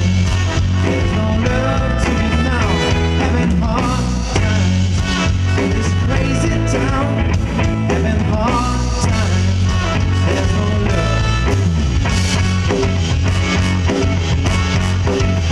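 Live band playing a song that mixes funk, pop and soul, with strong bass.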